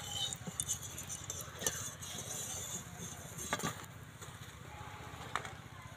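Hot oil sizzling in a metal kadai as fried patties are lifted out with a wire skimmer. A few sharp clinks of the skimmer against the pan are heard.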